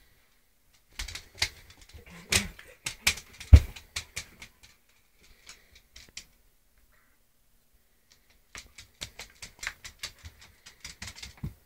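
A poodle-cross dog's claws clicking and scrabbling on a hardwood floor in two spells of quick taps, with one heavier thump about three and a half seconds in and a quiet gap in the middle.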